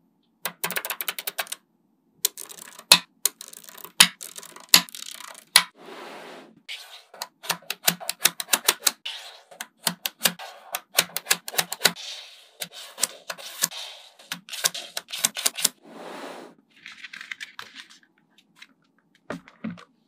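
Small metal magnet balls clicking and clacking as they snap together and are pressed into place, in quick irregular runs of sharp clicks with brief gaps and some softer rubbing between them.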